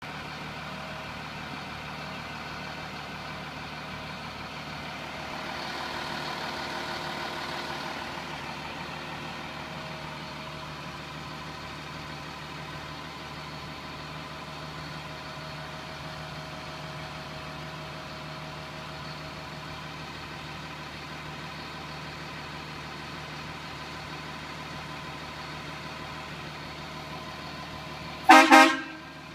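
Caterpillar diesel engine of a 2002 Ford F650 idling steadily, heard from inside the cab. Near the end, the truck's horn gives a loud, short double toot.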